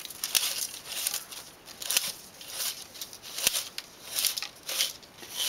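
A 35mm film strip being pulled out of the spiral of a plastic developing reel. It goes in repeated short rustling swishes, about two a second, with a couple of sharp plastic clicks.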